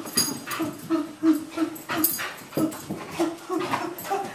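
Australian Cattle Dog mix giving short, repeated whining calls during rough play, about three a second, with sharp clicks and snaps between them.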